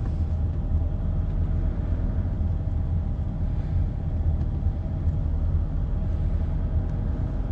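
Steady low rumble of a car heard from inside the cabin: engine and road noise with no sudden sounds.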